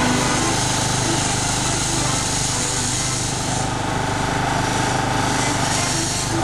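Grenville steam carriage running under steam with a fast, even mechanical beat, with a high steam hiss that eases about three and a half seconds in.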